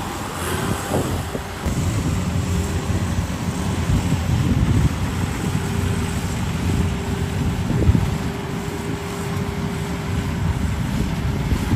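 Rice combine harvester running steadily, a low engine rumble with a thin steady whine above it, and wind rumbling on the microphone.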